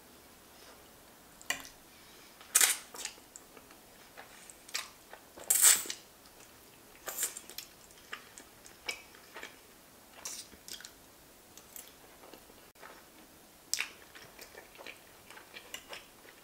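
Close mouth sounds of a person eating giant fusilli pasta in a creamy sauce: wet slurps, lip smacks and chewing in irregular short bursts, the loudest two about two and a half and five and a half seconds in.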